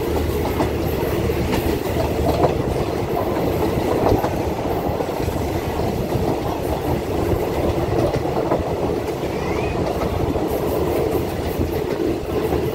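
Passenger train running along the track, heard from on board: a steady rumble of the carriage and wheels on the rails, with occasional light clicks.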